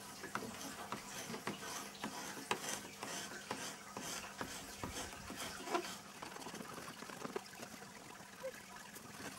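A blade scraping along the lead cames of a leaded glass window in short, irregular strokes, scraping the lead back to clean metal.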